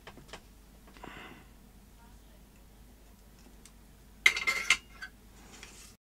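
Faint clicks and handling noise from small tools and headphone parts during the desoldering work, with one brief, louder clatter a little past four seconds in.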